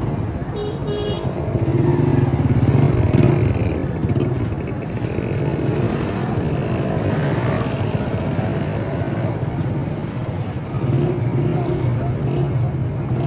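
Busy street traffic: motorcycle engines passing close by over a steady hum of other vehicles, loudest a couple of seconds in. A short high beep sounds under a second in.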